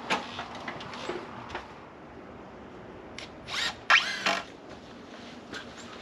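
Power drill running in short bursts, the loudest about four seconds in, with its pitch rising and falling as it runs: driving screws into the hide's wooden framing.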